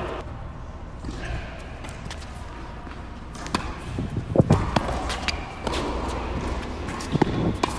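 Tennis ball impacts, bounces on the court and hits off racket strings: a scattered run of sharp knocks starting about three and a half seconds in, and a few more near the end.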